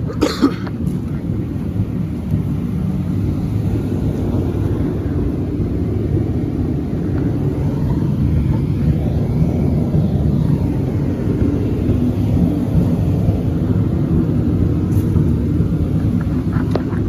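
A vehicle engine running steadily: a loud, low rumble without a break.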